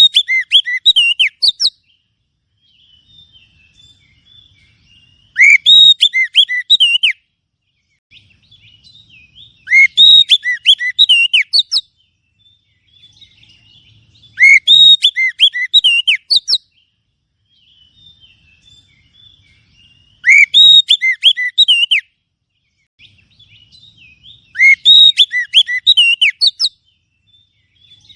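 Oriental magpie-robin (kacer) song used as a lure call: loud phrases of rich whistled and warbled notes, each about two seconds long, coming six times at gaps of four to five seconds, with faint twittering in between.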